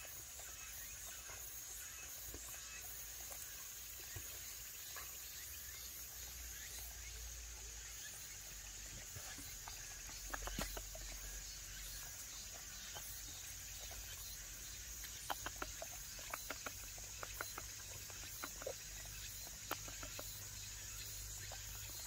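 Dogs chewing and crunching small pieces of food taken from a hand, with clusters of sharp crunches about halfway through and again through the second half, over a steady high hiss.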